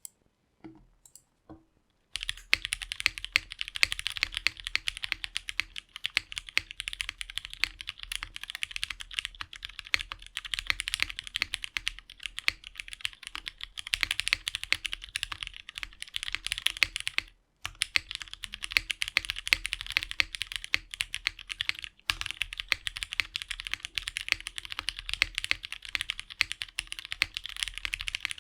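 Continuous typing on a custom mechanical keyboard with lubed Cherry MX Black Hyperglide linear switches, GMK keycaps and an FR4 half plate: a dense stream of keystroke clacks. A few scattered clicks come first, the steady typing starts about two seconds in, and there is a brief pause at about seventeen seconds.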